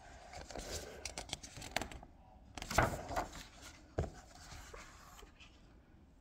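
Paper rustling and rubbing as the pages of a picture book are turned and handled, loudest about three seconds in, with a few small clicks.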